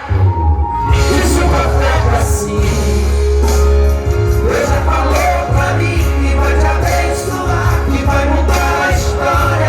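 Loud amplified music with heavy bass and singing.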